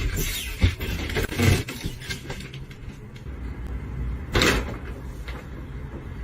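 A few short knocks and thumps, like a cupboard or door being handled, then a louder, longer clatter about four and a half seconds in, over a low rumble.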